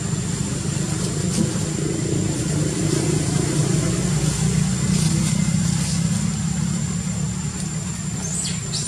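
Steady low rumble of a running engine, with a thin steady high whine above it and a brief high squeak near the end.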